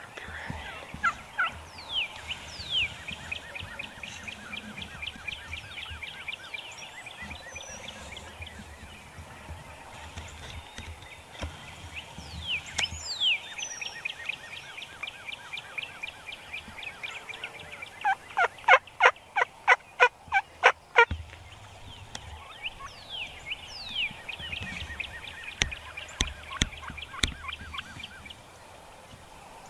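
Wild turkeys calling. Short, softer high notes run throughout, and about 18 seconds in comes a loud, evenly paced series of about a dozen yelps lasting some two and a half seconds, over light wind.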